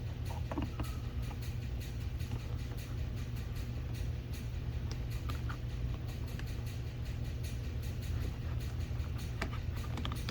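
A steady low hum, with a few faint clicks and taps from plastic door trim being pried at.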